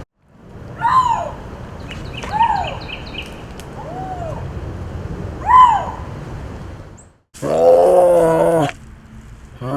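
Wild cat vocalizations: four short, high chirp-like calls that rise and then fall, spaced a second or so apart. After an abrupt cut about seven seconds in, a single longer, lower call with many overtones lasts just over a second.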